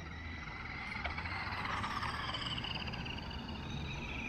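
Small brushed electric motor and gearbox of a toy RC monster truck whining as it drives, the pitch wavering up and down with the throttle and growing somewhat louder.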